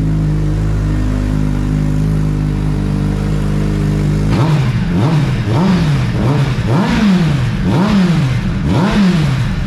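2022 Suzuki Hayabusa's 1340cc four-cylinder engine, just cold-started, idling steadily through small aftermarket eBay slip-on mufflers, then revved up and down about six times in quick succession from about four seconds in. The owner hears the bike struggling to push air out the exhaust, which he takes for the exhaust exits being too small.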